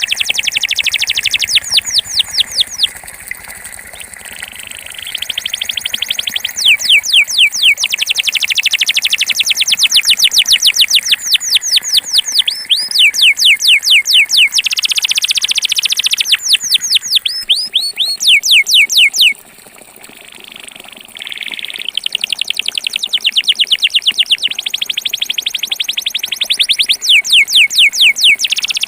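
Belgian canary singing its 'campainha' tour: long trills of rapid, repeated falling notes, broken by a short pause about two-thirds of the way through.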